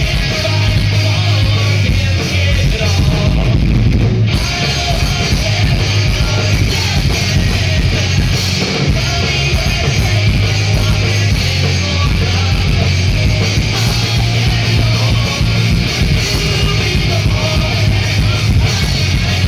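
Live rock band playing a loud, driving song on electric guitars, bass and drums, with the lead guitarist singing.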